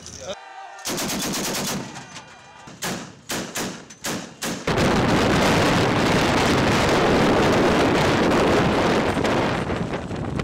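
Automatic gunfire: a short burst, then several separate shots, then from about five seconds in a long, unbroken stretch of rapid automatic fire.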